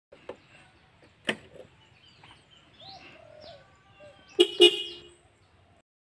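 Denso snail-type car horn fitted to a Honda Supra X 125 R motorcycle, sounding two short honks in quick succession about four and a half seconds in.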